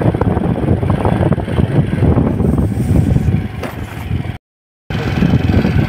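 Engine and road noise of a moving vehicle, a low uneven rumble. It cuts out completely for about half a second near the end.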